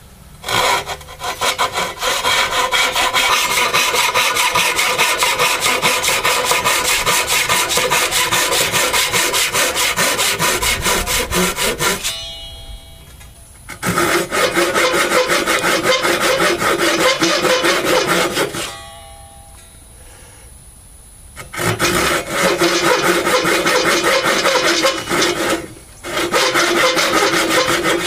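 Pull saw cutting into an ash block held in a vise, in fast back-and-forth strokes. The sawing comes in four runs, broken by three pauses of up to a few seconds.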